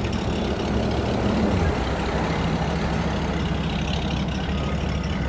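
An engine idling steadily, with a deep hum that shifts slightly about a second and a half in.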